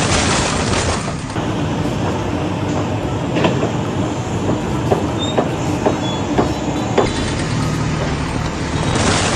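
Loud, steady mechanical rumble with sharp clacks about twice a second through the middle, starting and stopping abruptly.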